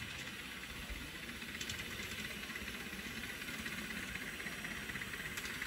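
5-inch gauge live steam model of a Highland Railway Loch Class locomotive running at a distance: a faint, steady hiss of steam and exhaust with quick, even little beats, growing slightly louder.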